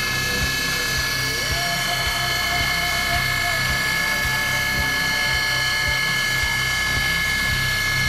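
ProtoTrak DPM3 CNC mill engraving letters into metal bar stock: the spindle and cutter give a steady high whine, over a low rhythmic chatter with regular ticks. About a second and a half in, a second tone rises and holds for about two seconds.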